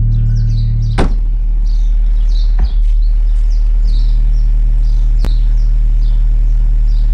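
Loud, steady deep bass notes played through 4-inch mini subwoofers in a car's trunk, with birds chirping over it and a sharp knock about a second in.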